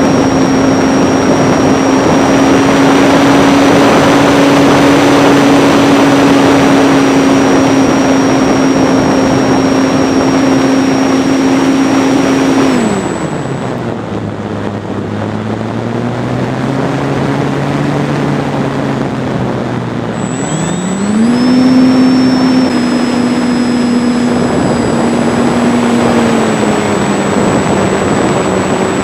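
Electric motor and propeller of a ParkZone T-28 model airplane whining in flight, heard from a camera on the wing with wind rushing over it. About 13 s in the throttle is pulled back and the pitch drops low and quieter; about 21 s in it is opened up again and the whine rises back.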